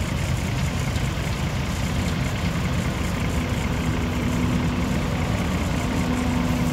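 John Deere combine harvester running as it threshes sorghum: a steady, loud low engine and machinery noise, with a steady hum coming in about halfway through as the machine passes close.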